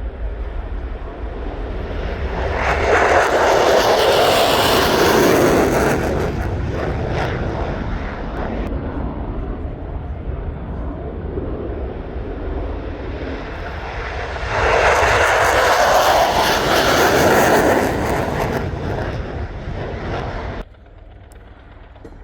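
Jet aircraft engine noise. It swells loud twice as aircraft pass, each time for a few seconds, with a steady low rumble underneath, and drops suddenly near the end.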